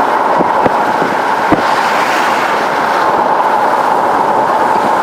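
Steady road and engine noise inside a moving vehicle's cabin, with a few sharp knocks in the first second and a half.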